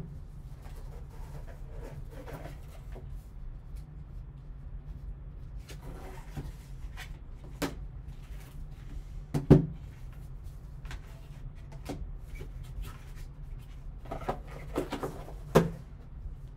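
Cardboard box handled with gloved hands: the lid and foam-lined insert sliding and scraping, with soft rustling and a few sharp knocks, the loudest about nine and a half seconds in. A steady low hum runs underneath.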